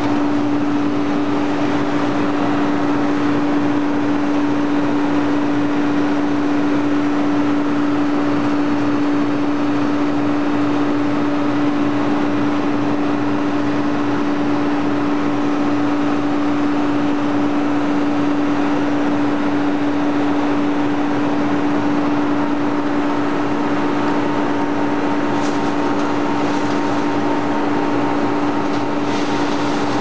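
Y81-1600 hydraulic scrap-metal baler's power unit running: its electric motor and hydraulic pump give a steady hum with one strong held tone. A few faint clicks come near the end.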